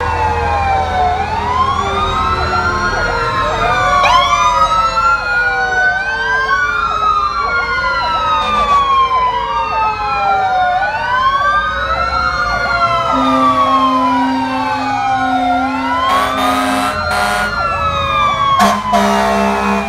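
Several fire engine sirens wailing at once, their rising and falling tones overlapping at different rates. A low, steady horn blast sounds in the second half and again near the end.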